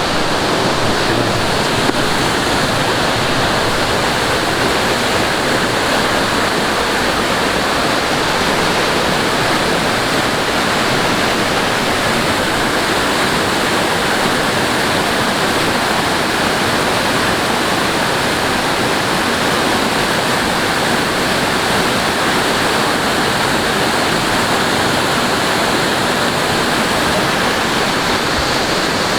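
Mountain stream rushing over rocks close by, a loud, steady rush of water.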